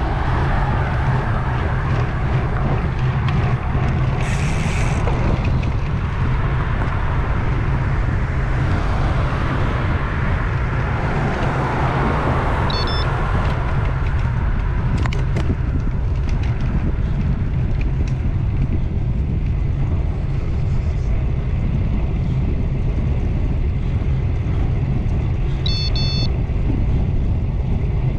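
Riding a road bike on a paved road with traffic: steady wind rumble on a GoPro Hero 8 action camera's microphone, with tyre and road noise. A passing car's sound swells and fades around twelve seconds in.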